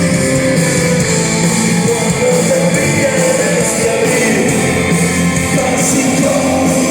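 Rock song with guitars and a singing voice.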